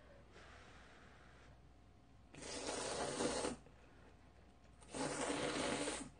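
Two slurps of kalguksu noodle soup cooked in octopus broth, each lasting about a second, the second following a second or so after the first.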